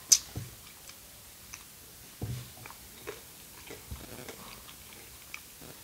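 Chewing of fried calamari: scattered soft crunches and wet mouth clicks, with a sharp click at the very start.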